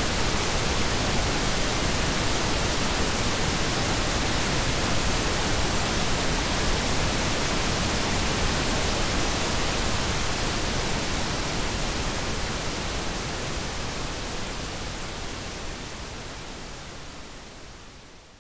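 Pink noise: a steady, even hiss with a deep rumbling low end, fading out gradually over the last several seconds.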